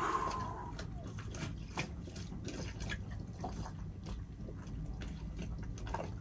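A man blows out a long breath through pursed lips at the start, the sigh of someone fighting back tears, followed by a quieter stretch of faint scattered clicks over a low steady rumble.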